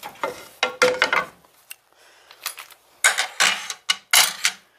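Metal cutlery clinking and scraping against dishes, in several short bursts.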